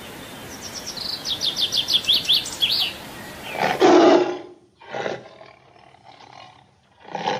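A songbird calling a rapid run of high chirps, about five a second, over a steady hiss for the first three seconds. Then a tiger roars: one loud roar about halfway through, a shorter one a second later, and another beginning near the end.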